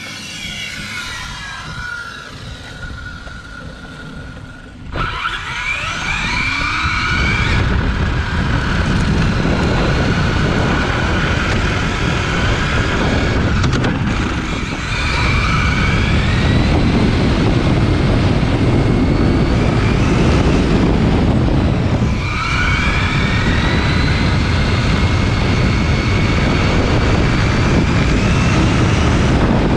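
Onboard sound of a 1/8-scale brushless electric RC car running on a 6S LiPo at speed on asphalt. Three times the motor's whine rises in pitch and then holds steady as the car accelerates, reaching about 47 mph near the end, over a loud rumble of tyre and wind noise. For the first five seconds the car is heard more faintly from the roadside, a thin steady whine.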